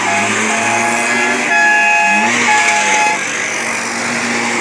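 Old cars and scooters driving slowly past in a parade, with several horn toots between about half a second and three seconds in and a brief engine rev near the middle.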